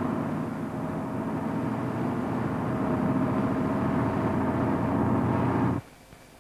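Double-decker bus engine running while the bus is driven, with a steady higher-pitched tone above the engine note; it cuts off suddenly near the end.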